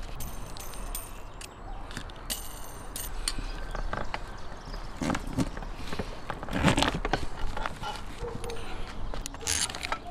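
Steel roasting spit and its pronged clamps clinking and scraping as they are worked into a whole lamb carcass: high metallic ringing scrapes twice in the first few seconds, then scattered knocks and rubs of handling.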